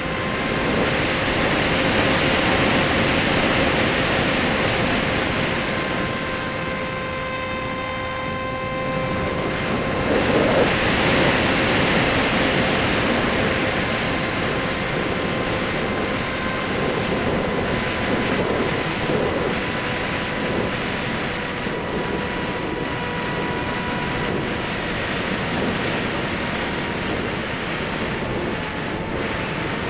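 Electric motor and propeller of a Skysurfer (Bixler) foam RC plane whining at a steady pitch, with heavy wind rushing over the microphone of the onboard camera. The whine weakens about nine seconds in and goes on more faintly under gusts of wind.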